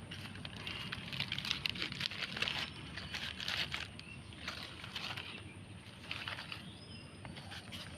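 Irregular crackling and rustling of old plastic being pulled and crumpled out of roadside plants.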